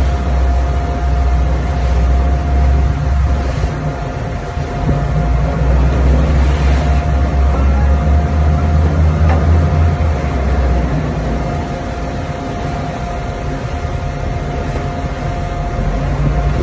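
Pilot boat's engines running with a steady low drone under a constant rush of water between the boat and the ship's hull, with a thin steady whine over it. The lowest part of the drone eases off about ten seconds in.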